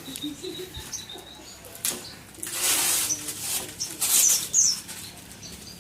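A canary flapping its wings in its shipping box or cage: two loud bursts of flapping about halfway through, with a few short, high chirps.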